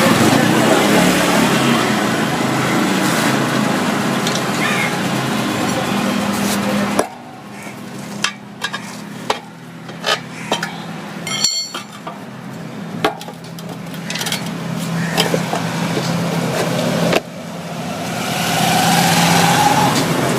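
Road traffic noise from passing vehicles, loud at first, then dropping suddenly to a quieter stretch of scattered clicks and knocks, before another vehicle's noise swells up near the end with a rising engine note.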